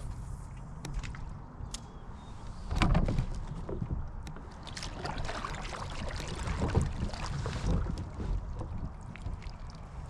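Kayak being handled on the water: short knocks and scrapes against the hull over a background of water noise, the loudest a thump about three seconds in.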